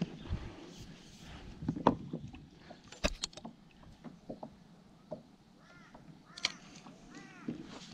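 Scattered sharp clicks and knocks from fishing gear being handled on a kayak, and near the end two short runs of harsh, crow-like bird calls.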